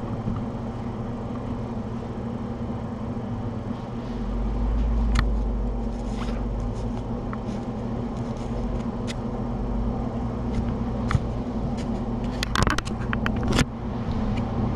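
Steady low machine hum, with a deeper rumble swelling about four seconds in and a few sharp clicks and knocks near the end.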